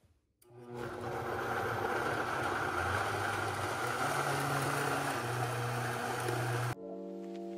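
High-speed countertop blender puréeing roasted vegetables. The motor spins up about half a second in, runs steadily with a shift in pitch partway through, and stops suddenly near the end.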